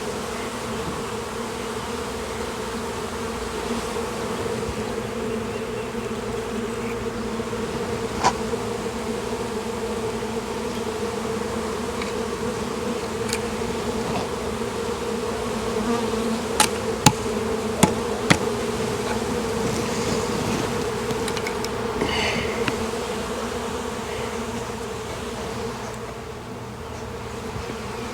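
Honeybee swarm buzzing steadily close by, a low even hum of many wings, as the newly hived bees search for the queen and the entrance. A few sharp clicks come through, mostly in a quick cluster about two-thirds of the way in.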